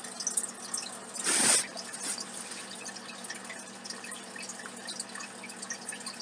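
Quiet room with faint scattered small clicks and rustles close to the microphone. About a second in there is one short breathy hiss lasting under half a second.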